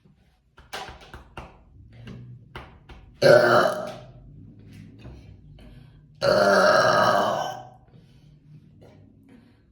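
A woman burping twice: a shorter burp about three seconds in and a longer one lasting over a second about six seconds in. A run of short clicks comes before them.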